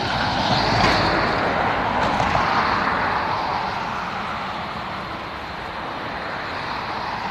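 Jet airliner engine noise, a loud rushing roar that swells to a peak about a second in and then slowly fades.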